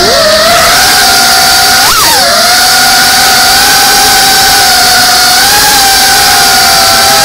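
Brushless motors and ducted propellers of a Geprc Cinelog 35 cinewhoop whining steadily in flight, loud and close. About two seconds in the pitch jumps up, dips sharply and recovers with a quick throttle change.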